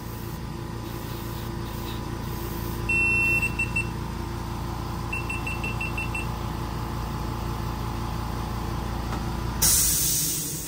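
Spray booth exhaust fan humming steadily, with a GoPro's electronic beeps as the camera shuts off: one longer beep about three seconds in, then a quick run of short beeps a couple of seconds later. Near the end, the hiss of an airbrush spraying starts up and is the loudest sound.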